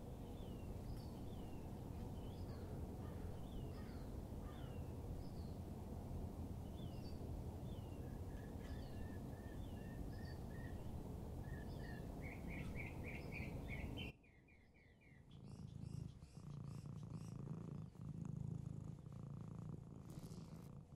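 A cat purring close up, with small birds chirping over it, about one short falling chirp a second, and a fast run of repeated notes toward the end. The purring and chirping cut off suddenly about two-thirds through, leaving a quieter room with a low hum and a few faint taps.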